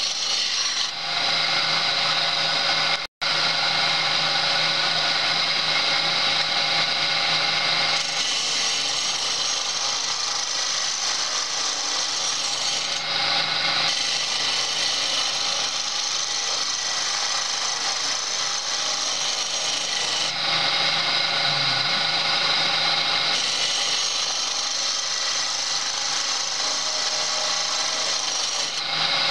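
Homemade wood lathe turning a long wooden blank while a hand chisel cuts into the spinning wood: a steady, loud cutting noise over the machine's even hum. The noise changes as the tool shifts, and there is a momentary break about three seconds in.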